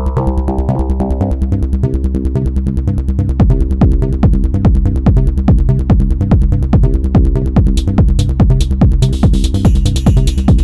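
Hypnotic psy-techno pattern playing on an Elektron Model:Cycles groovebox: a fast, steady pulse of short downward-gliding hits over a sustained bass. A held chord fades out in the first two seconds, the groove gets louder about three and a half seconds in, and a bright hissing layer comes in near the end.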